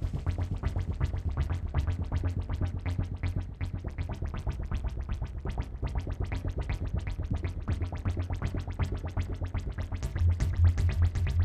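Experimental electronic noise music from hacked electronic hardware: a rapid, irregular stream of clicks over a low, steady hum, the hum swelling louder near the end.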